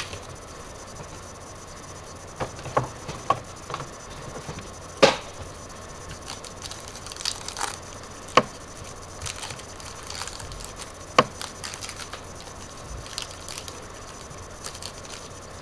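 Handling of a trading-card mini box and its cards: scattered sharp clicks and taps, the loudest about 5, 8½ and 11 seconds in, with soft rustling between.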